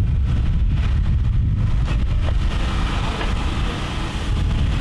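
Canal workboat's engine running, a low steady rumble.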